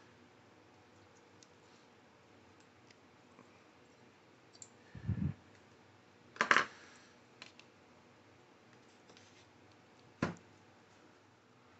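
A few scattered knocks and clicks of hard objects being handled: a dull knock about five seconds in, a sharper clatter a moment later (the loudest sound), a small click, and a single sharp click near the end, over a faint steady hum.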